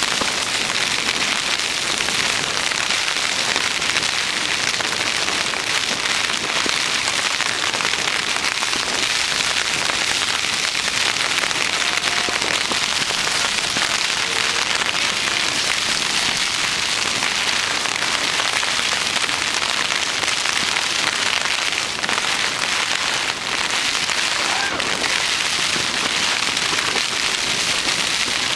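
Rain falling on the fabric of a Eurohike Kent tent, heard from inside: a dense, steady hiss of many small drop hits that keeps up without a break.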